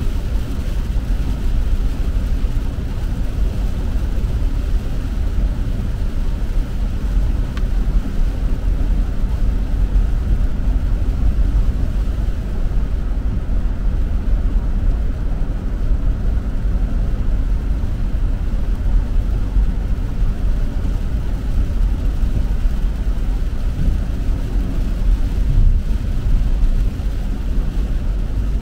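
Steady low rumble of a car driving on a rain-wet road, heard from inside the cabin: tyre and road noise with the car's running.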